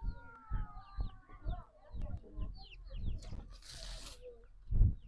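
Chickens clucking and chirping, over repeated low thumps, with a brief hiss about three and a half seconds in and a louder thump near the end.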